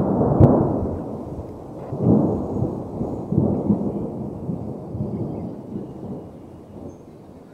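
Low rumbling noise that swells three times in waves, then slowly dies away, with a sharp click about half a second in.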